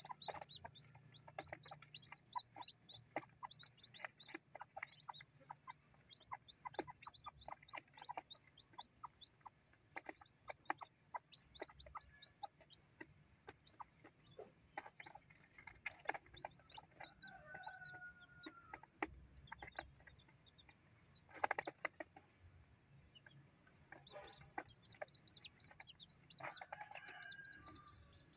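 Newly hatched chicks peeping in quick, high notes while they peck at grain on cardboard, with light taps from their beaks. A hen gives a few low clucks now and then, and there is one sharper tap about two-thirds of the way through.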